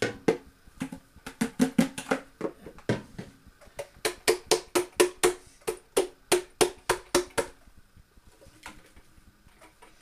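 Plastic blender jug being knocked repeatedly to shake ginger nut biscuit crumbs out into a bowl: a run of sharp hollow knocks, uneven at first, then a quick even series of about four or five a second, then a few lighter taps near the end.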